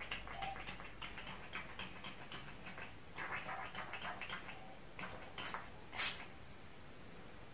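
Light ticking and rustling from handling a small plastic pump-spray bottle of strawberries-and-cream body spritzer, then three quick hissing sprays of mist about half a second apart, the last the loudest.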